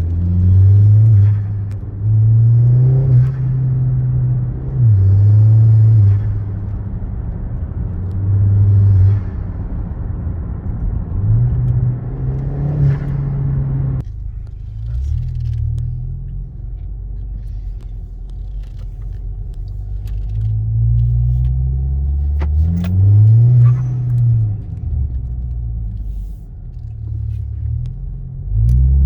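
Audi 2.0 TFSI turbocharged four-cylinder with a K04 turbo, revved in repeated short blips, each rising and falling back to idle. A faint hiss follows several blips, which fits the newly fitted Forge blow-off valve venting as the throttle closes.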